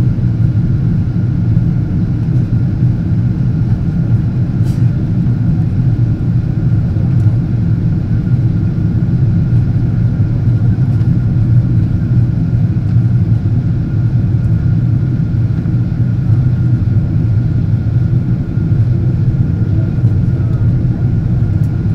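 Steady cabin noise inside a Boeing 777-200 airliner in flight on approach: an even, loud low roar of engines and rushing air, with a faint steady high tone above it and one small click about five seconds in.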